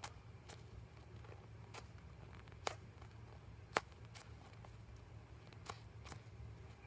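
Handling noise from a foam squishy toy being turned and squeezed in the hands: a scattering of light, sharp clicks and taps, two of them louder near the middle, over a low steady hum.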